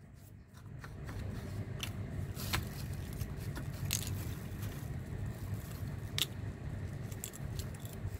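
Cracked walnut shells being broken apart by hand, giving several sharp cracks and snaps, over a steady low hum of air-conditioner units.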